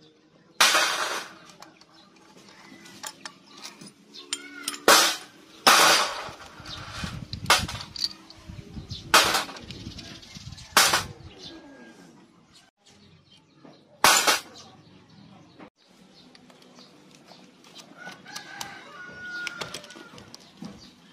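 Several loud bursts of chicken and rooster calls close by, about six in all. Between them come quieter clicks of hand tools and small bolts as the cam sprocket cover and sprocket bolts are taken off a small motorcycle engine.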